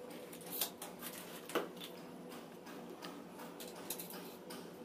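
Light clicks and knocks of a plastic water pipe and hand tools being handled, the two sharpest about half a second and a second and a half in, over a faint steady hum.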